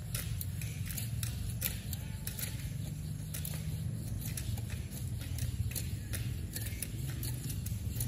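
Macaque tearing and biting at a green coconut's husk and flesh: irregular crackling, snapping clicks, several a second, over a low steady rumble.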